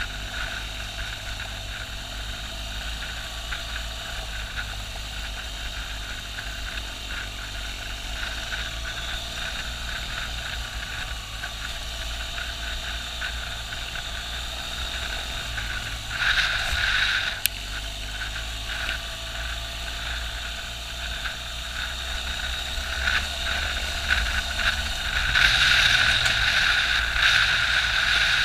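BMW R1200GS boxer-twin engine running under way on a gravel track, mixed with wind rush and tyre noise; it grows louder over the last few seconds.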